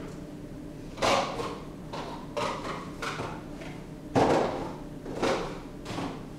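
Household knocks and clunks, about seven at uneven intervals, the loudest a little past four seconds in, over a low steady hum.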